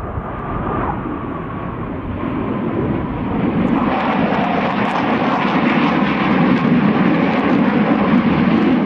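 Sukhoi Su-57 twin-engine jet fighter flying a display pass, its jet noise a steady roar of rushing noise that grows louder and brighter about four seconds in.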